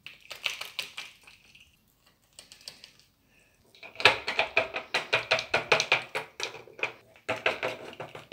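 Small plastic Littlest Pet Shop toy figures tapped quickly and repeatedly on a surface, like little footsteps. The taps are lighter at first, then come fast and loud on a wooden tabletop from about four seconds in.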